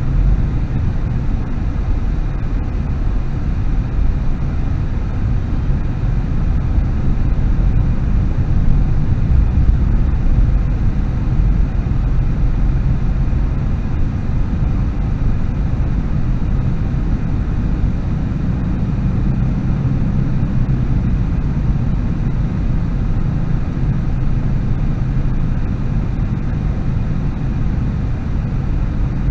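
Steady low rumble of a car's engine and tyres on the road, heard from inside the cabin through a dash cam microphone.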